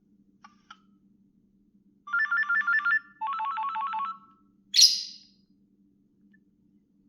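Nokia 6670 mobile phone playing ringtone previews through its small speaker: two rapid warbling trills of about a second each, the second lower in pitch, then a short bright noisy burst that fades within half a second.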